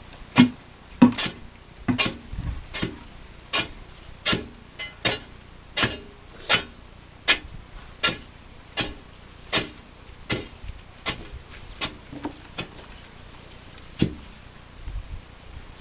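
Steel digging bar striking the rock and gravel wall of a hand-dug mining pit: a steady series of sharp impacts, a little more than one a second, with one last hard strike about fourteen seconds in before it stops.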